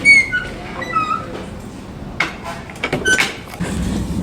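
Fire doors swinging shut under cam-action door closers: short high squeaks in the first second, then sharp clicks and knocks from the latch hardware about two and three seconds in.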